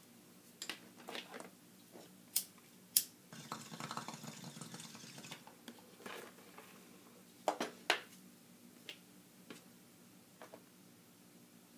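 Handling noise from a cardboard toy box with a clear plastic window being turned in the hands: scattered light taps and clicks, with a rustling scrape from about three to five seconds in.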